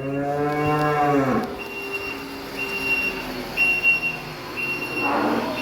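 A cow mooing once, one long call of about a second and a half that drops in pitch at the end. A short high beep repeats on and off behind it.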